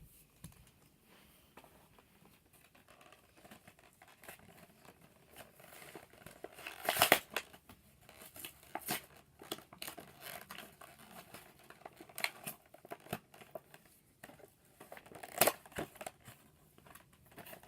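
Plastic toy packaging crinkling and rustling as a Beyblade is unpacked, with scattered sharp clicks and snaps; the loudest handling comes about seven seconds in and again near the end.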